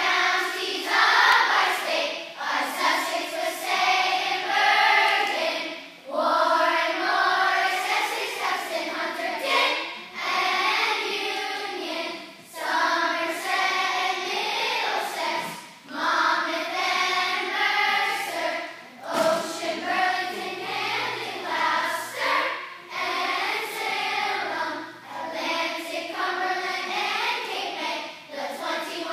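A group of schoolchildren singing together as a choir, in phrases a few seconds long with short breaks between them.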